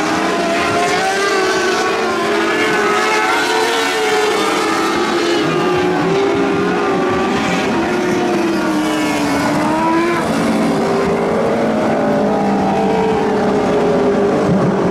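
Several lightning sprint cars racing, their high-revving engines overlapping in a continuous loud drone whose pitches rise and fall as the cars work through the turns and straights.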